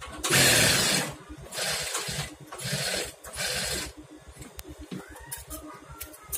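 Industrial single-needle lockstitch sewing machine stitching a trouser hem in four short runs, each under a second, stopping and starting in the first four seconds.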